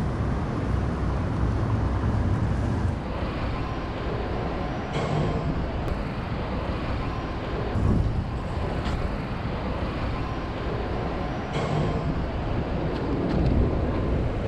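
City street traffic noise: a steady low rumble of vehicles, with a few short clicks and knocks scattered through it.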